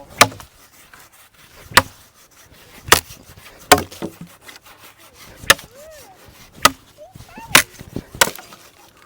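Machete chopping into a wooden pole, about eight sharp strikes at uneven intervals of roughly a second.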